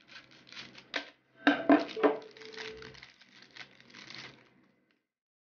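Scissors snipping through a plastic packaging pouch and the thin plastic wrap crinkling as it is pulled open by hand, with a few sharp snaps, the loudest about a second and a half in.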